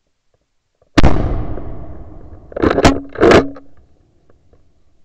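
A Blaser R8 rifle fires a single shot about a second in, its report dying away in a long rolling echo. About a second and a half later come two loud, short noises close to the microphone.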